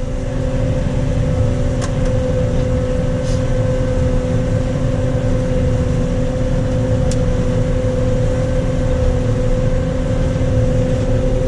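John Deere 9510 combine running steadily while harvesting soybeans: a constant low diesel drone with a steady whine held at one pitch, and a few faint clicks.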